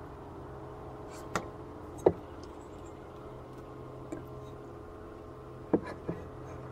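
Low steady hum of a honeybee colony clustered inside the hive, heard at its bottom entrance, with five sharp ticks over it, the loudest about two seconds in and near the end.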